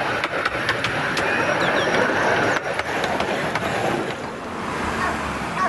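Miniature railway train running, a steady rumble with a run of sharp clicks in the first second or so.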